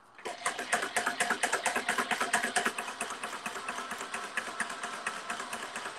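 Chain-stitch McKay sole-stitching machine starting up about a quarter second in and running with a fast, even clatter of about eight stitches a second, stitching through about three-quarters of an inch of firm leather at a boot's heel.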